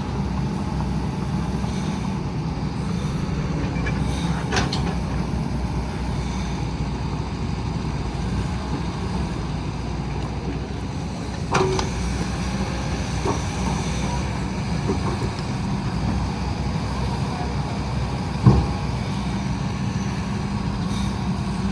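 Heavy vehicle engine running steadily under load, a deep even drone, with a few brief knocks about a third, halfway and most of the way through.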